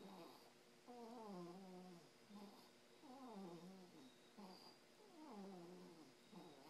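Faint snoring with a squeaky, whiny pitch. Each breath, about every two seconds, gives a short squeak followed by a longer note that slides down in pitch.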